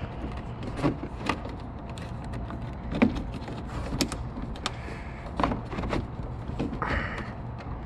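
Handling sounds of a trunk-lid liner being fitted: scattered light clicks and knocks, about eight in all, as hands press the felt panel and plastic emergency release handle into place, with a brief rustle near the end. A steady low hum runs underneath.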